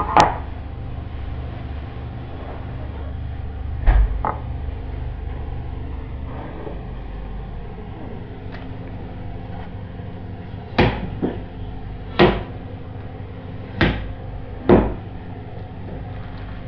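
Scattered sharp knocks over a steady low hum: one at the start, two about four seconds in, and four more a second or so apart in the second half.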